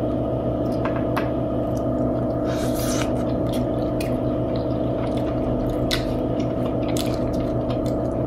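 Wet, squishy chewing and mouth sounds of people eating soft fufu and egusi stew by hand, with scattered small clicks, over a steady hum.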